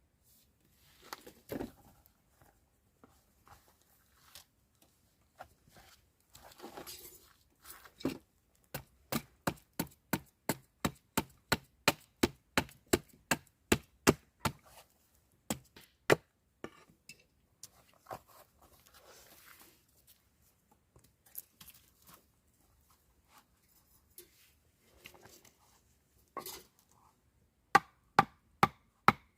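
Chopping on a cutting board, sharp strokes in a steady run of about two to three a second, pausing, then starting again near the end.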